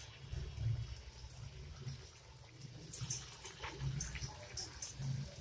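Sesame-and-puffed-rice naru balls deep-frying in hot oil in an aluminium kadai: a light sizzle with scattered crackles, over a low rumble.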